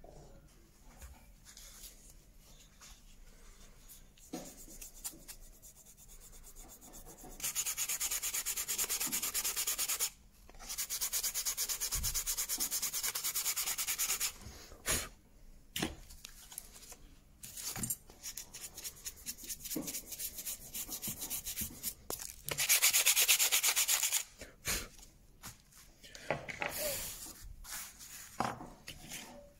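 Hand rubbing down of a wooden clock bracket with an abrasive, heard as spells of fast back-and-forth scratchy strokes. There is a longer stretch a few seconds in with a short break, a louder spell about two-thirds of the way through, and small handling knocks in between.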